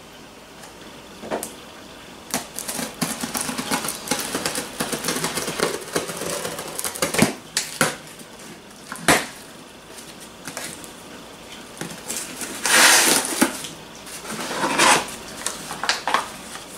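Cardboard box being opened by hand: scattered taps, knocks and scraping on the cardboard, then a loud rustle of packaging about thirteen seconds in and a shorter one just after, as a plastic-wrapped package is pulled out.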